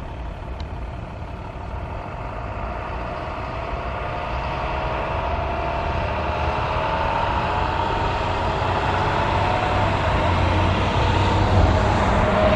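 An engine approaching and growing steadily louder over several seconds, with a slowly gliding whine.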